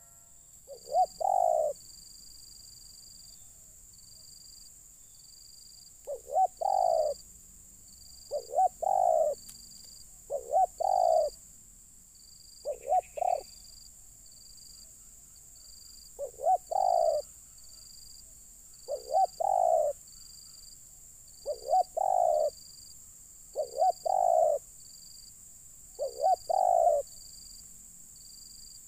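Spotted dove cooing: a phrase of two or three short notes and one longer note, repeated ten times about every two to three seconds. A faint high pulsing insect call and a high hiss run underneath.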